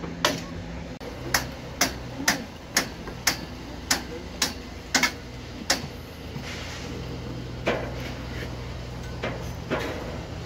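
Steel bricklaying trowel tapping on clay bricks, with sharp clicks about two a second for the first half. Then a scrape of mortar and a few more taps, over a steady low hum.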